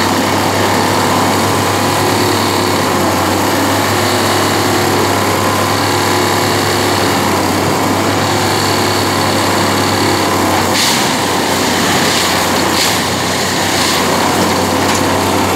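Plasser & Theurer UNIMAT track tamping machine running with a steady, loud engine hum. Several short hisses come through near the end.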